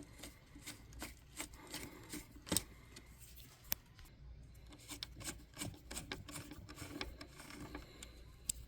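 Small screwdriver driving in the two screws that hold an M.2 SSD heatsink down: faint, irregular clicks and light scraping of the bit and screw threads, with a couple of sharper clicks.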